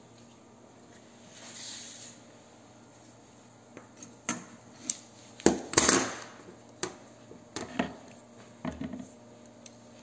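Handling noise on a wooden board: a series of short, light knocks and clicks, the loudest cluster a little past the middle, with a faint brief hiss early on.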